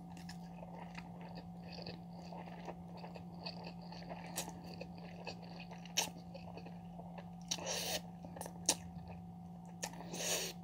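A person eating spicy instant noodles close to the microphone: small wet chewing clicks throughout, with two short slurps of noodles, one about two thirds of the way in and one near the end. A faint steady hum runs underneath.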